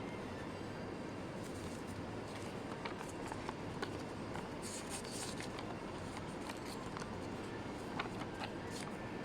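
Light handling noises: scattered small clicks and rustles, as of packaging and an item being handled, over a steady background hiss.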